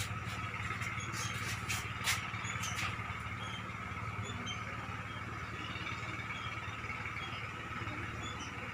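Small generator (genset) engine running steadily at a constant speed, with a few light clicks in the first three seconds.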